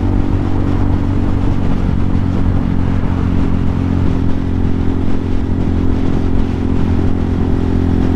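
Hawk 250's single-cylinder four-stroke motorcycle engine running at a steady speed, its note holding without revving up or down.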